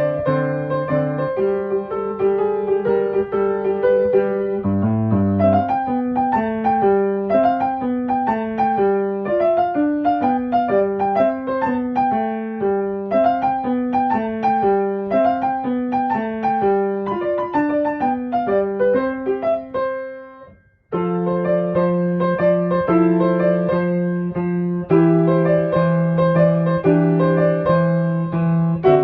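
Background piano music: a gentle piece of flowing runs of notes, which fades out about twenty seconds in and starts again a moment later.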